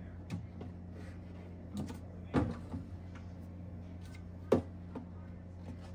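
Plastic dip and sour cream tubs set down and shuffled on the glass shelves of an open refrigerator: a handful of short knocks and clicks, the sharpest about four and a half seconds in, over a steady low hum.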